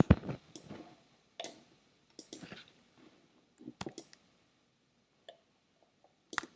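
Computer mouse and keyboard clicks at irregular intervals, some single and some in short quick runs.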